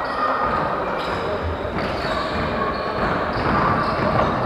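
Basketball game play in a large gym: a ball bouncing on the wooden floor and players moving on the court, with the echo of the hall.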